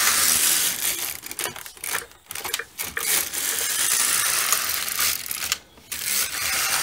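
Silver Reed LK150 knitting machine carriage being pushed across the needle bed, a continuous rasping swish as it knits. It goes in about three sweeps, with brief pauses where it turns at the ends.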